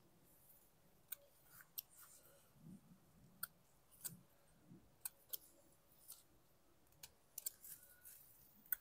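Marigold stems being picked by hand: faint, scattered sharp snaps, about a dozen.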